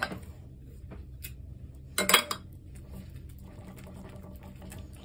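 Metal wire whisk stirring a thick, lumpy dough mix in a bowl, with faint scraping and a short, louder clatter about two seconds in.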